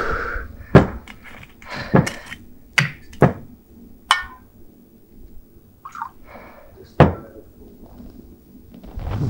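A glass bottle and a drinking glass handled on a bar counter: a few sharp knocks as they are set down and picked up, and a brief glassy clink a little before the middle.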